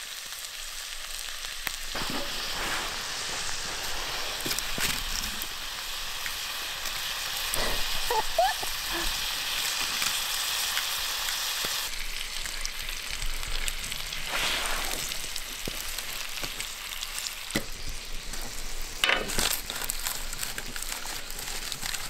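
Steaks sizzling on a grill over an open fire, a steady hiss with scattered pops and crackles.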